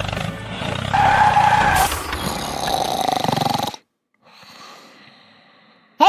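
A loud roar sound effect starts about a second in and cuts off suddenly near four seconds, followed by a faint hiss.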